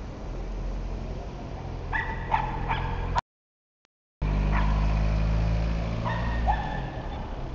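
City street traffic: a steady rumble of car engines, with several short high-pitched cries over it, a cluster about two seconds in and more from about four and a half to seven seconds. The sound cuts out completely for about a second after three seconds.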